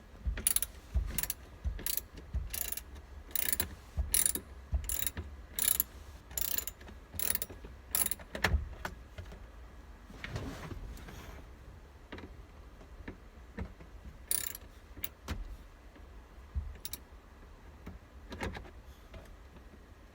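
Hand ratchet with a T30 Torx bit clicking in steady back-and-forth strokes, about two to three clicks a second, turning out a steering-wheel airbag screw. After about eight seconds the clicking stops, leaving a few scattered clicks and knocks.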